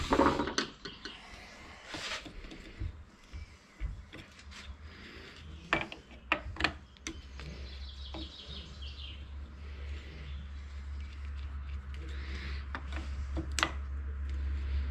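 Metal clicks and clinks of hand tools and parts being handled while a tractor starter motor is taken apart, with a clatter at the start and a few sharp clicks later. A low hum grows louder through the second half.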